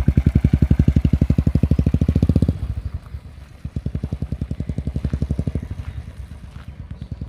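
Royal Enfield single-cylinder engine running through a peashooter exhaust with no dB killer: a steady, fast train of thumps, loud for the first two and a half seconds, dropping, swelling again for a couple of seconds, then fading.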